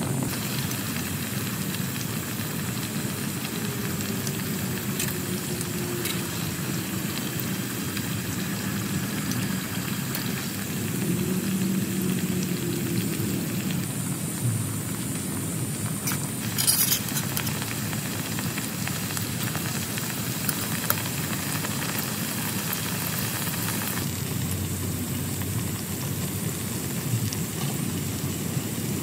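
Heavy rain falling steadily on a tent, an even hiss. A single sharp tap comes about 17 seconds in.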